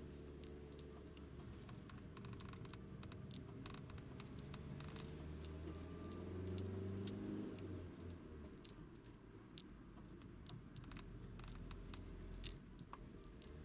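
A motor running, its pitch rising and falling and loudest about six to eight seconds in, with many sharp clicks and rattles over it.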